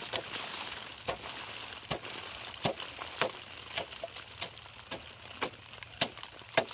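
A series of sharp knocks, evenly spaced about two a second, over a steady hiss.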